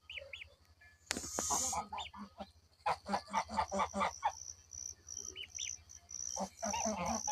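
Geese honking in quick runs of short calls, with a brief hiss early on and a few thin high peeps between, over steady insect chirring. The geese are guarding their young against an approaching person.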